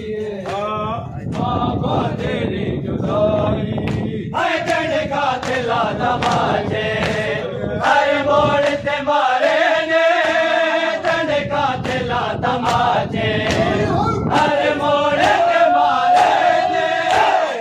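A group of men chanting a Punjabi noha (mourning lament) together, with the dull slaps of rhythmic chest-beating (matam) at about two a second.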